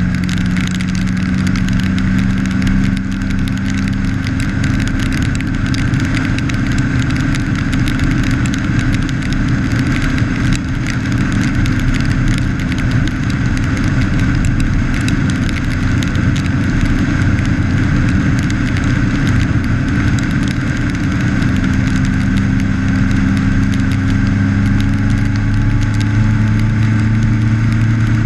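Motorcycle engine running at road speed, picked up by a camera mounted on the bike, under steady wind and road noise. The engine note shifts pitch a few times and rises slightly near the end.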